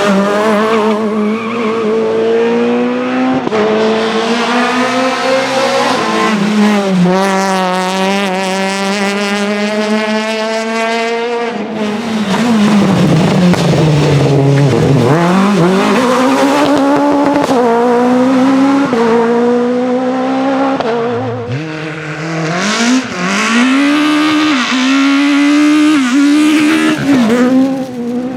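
Rally car engines driven hard. The engine note climbs steadily under acceleration, drops away sharply, sweeps low and back up, and near the end rises in short steps through quick gear changes.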